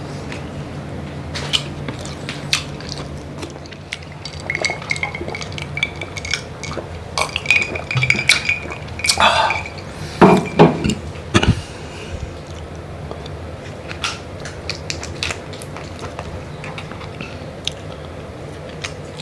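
Plates and cutlery clinking and tapping while seafood is handled at the table, in scattered clicks with a few louder knocks a little past halfway. A thin high tone sounds for a few seconds about a quarter of the way in, over a low steady hum.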